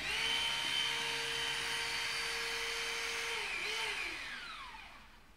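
Hydraulic rescue cutter (jaws of life) switched on, its motor and pump running with a steady whine while the blades work. About three seconds in the pitch falls and the sound winds down to a stop.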